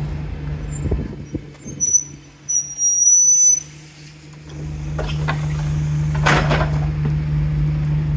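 Bus engine running steadily, with brakes squealing in short high bursts about two to three seconds in as the bus pulls up, then a short hiss of released air a little after six seconds.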